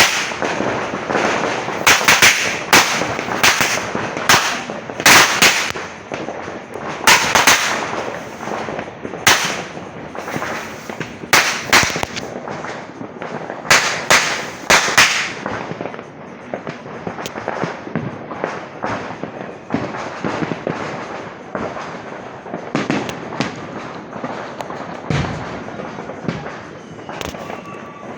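Firecrackers going off in rapid, irregular bangs, loud and crowded together for about the first half, then thinning to smaller, fainter pops.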